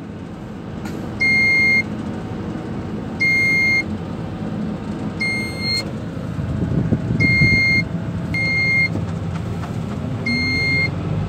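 An electronic warning beeper giving a short, high single-pitched beep about every two seconds, over a steady low rumble of storm wind buffeting the crane cab that swells for a moment midway.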